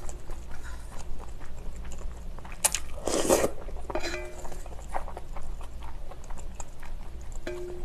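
Close-miked eating of spicy noodles: a person slurping them up and chewing, with one long, loud slurp about three seconds in.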